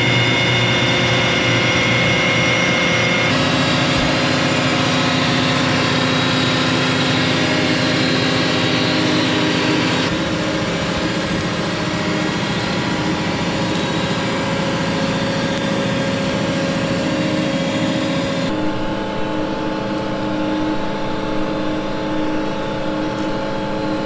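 Steady engine-driven drone of a Carbon Robotics G2 laser weeder at work, with several steady held tones. The tone shifts abruptly a few seconds in, about ten seconds in, and again near eighteen seconds.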